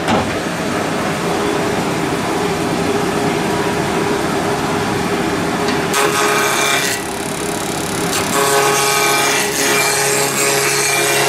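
Wood lathe running with a steady hum while a gouge cuts into the spinning wooden blank. The cutting comes in rough scraping spells from about six seconds in.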